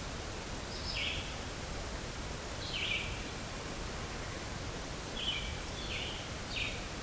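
Five short, high bird calls at irregular intervals, over a steady background hiss of outdoor noise.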